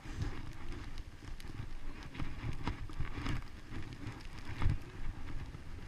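Skis sliding over choppy, tracked-up snow, a steady scraping hiss with irregular louder scrapes and chatters as the edges bite, the loudest a little past halfway, under low wind rumble on the microphone.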